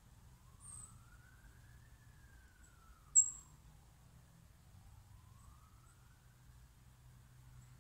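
Distant siren wailing slowly up and down, faint over a low rumble. Two short, high-pitched chirps cut in, one just under a second in and a louder one about three seconds in.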